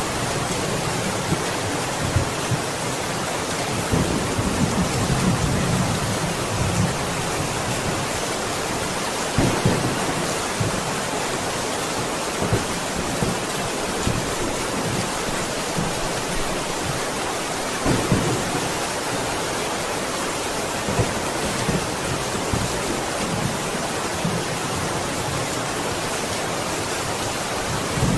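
Steady, heavy rain falling, with thunder rumbling low in the background: a longer rumble a few seconds in and a couple of short low cracks later on.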